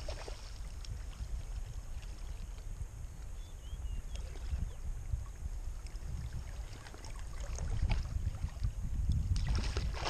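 Steady low rumble of wind and moving water around a small boat. Near the end it grows louder and fuller as a hooked fish splashes at the surface close to the boat.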